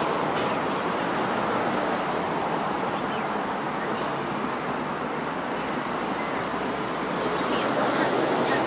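Steady road traffic noise, an even rushing hum with no distinct events.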